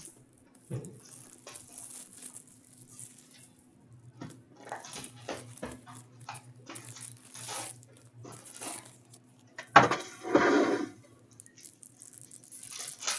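Hands unwrapping and opening a cardboard box of trading-card packs: plastic wrap crinkling and tearing, cardboard and packs rustling. A sharp knock about ten seconds in, followed by a longer rustle, is the loudest thing; a low steady hum lies underneath.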